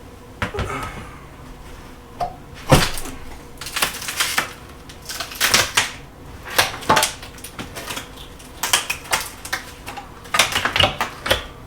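Irregular knocks, cracks and clatters of wooden door trim being pulled off a wall and handled, a dozen or so sharp strokes at uneven intervals.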